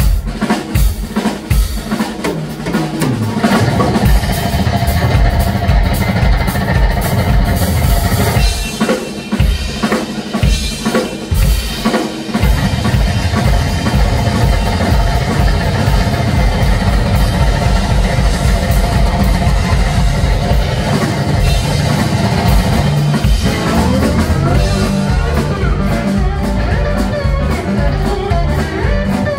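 Live blues-rock band playing loud: electric guitar over a drum kit and electric bass. The low end drops out for a few seconds about a third of the way in, leaving guitar and drums, then the full band comes back in.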